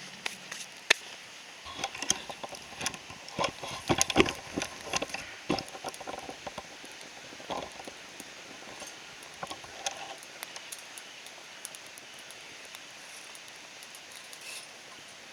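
A run of irregular sharp knocks and clicks, thickest in the first few seconds, thinning out about two-thirds of the way through, then only a faint outdoor hush.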